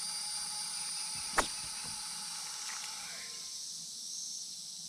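Steady high-pitched drone of insects in summer woods, with one sharp click about a second and a half in.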